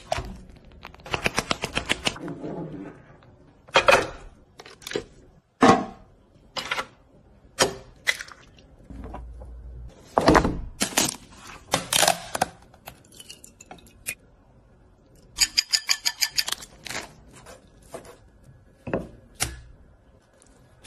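Sharp cracks and knocks from preparing a crab on a cutting board, with two runs of rapid, even taps at about eight a second, one near the start and one a little after the middle.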